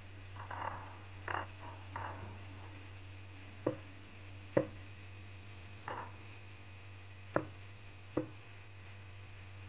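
Chinese cleaver cutting sea cucumbers on a cutting board. First come a few softer, scraping cuts, then about five separate sharp knocks of the blade hitting the board, roughly a second apart. A low steady hum runs underneath.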